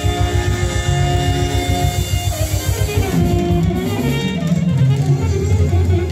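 A live folk band playing a Macedonian dance tune without vocals: held melody lines over a fast, steady beat.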